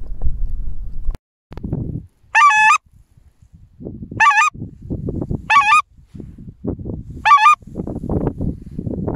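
Goose call blown by a hunter: four short, loud honks, each breaking in pitch, starting about two and a half seconds in and spaced a second and a half to two seconds apart, with wind rumbling on the microphone between them.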